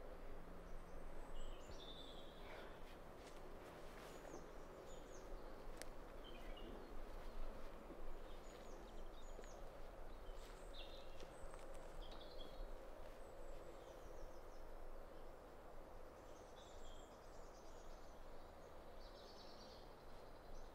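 Faint woodland ambience: scattered short bird chirps over a low steady hum.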